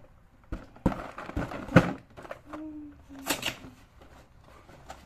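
Cardboard coffee-capsule boxes being handled and one box's flap pried open: a series of sharp knocks and papery rustles, loudest in the first two seconds, with a short hummed voice sound midway.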